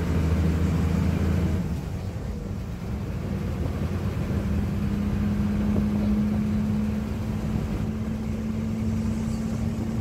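Engine and road noise inside a moving shuttle bus: a steady low engine hum that eases off about one and a half seconds in, then settles into a steady, slightly higher note from about four seconds.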